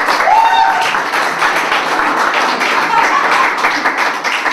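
Audience applauding, with a few short cheers near the start.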